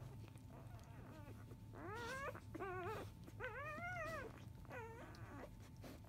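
Newborn Labrador Retriever puppies whimpering while nursing: four high whines starting about two seconds in, each rising or wavering in pitch, the last one short.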